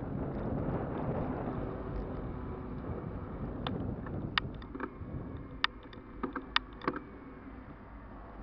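Riding noise from a moving e-bike: wind on the microphone and tyre rumble, easing off as it goes. In the middle a quick scatter of sharp clicks and knocks from the bike and its camera mount rattling.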